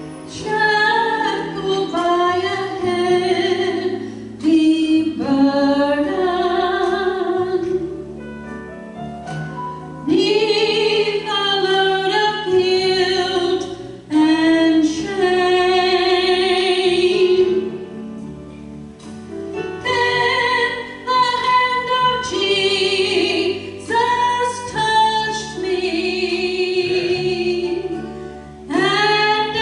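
A woman singing a solo sacred song into a handheld microphone over a steady instrumental accompaniment, her held notes wavering with vibrato and her phrases breaking every few seconds.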